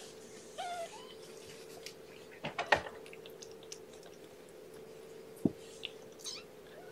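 Neonatal kitten suckling on a feeding nipple: small wet clicks and smacks, with a cluster of louder clicks about two and a half seconds in and a single knock later, over a faint steady hum.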